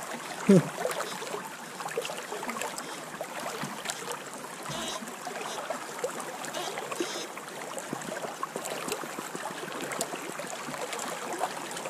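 Creek water running and lapping, with small splashes and light ticking as a gold pan of gravel is worked by hand at the water's surface. One louder short sound stands out about half a second in.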